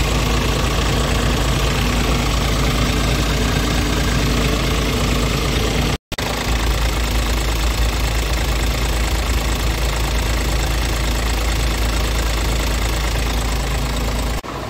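Scania R450 truck's 13-litre six-cylinder diesel engine idling steadily, heard close up from beside the chassis. The sound cuts out for a moment about six seconds in, then carries on unchanged.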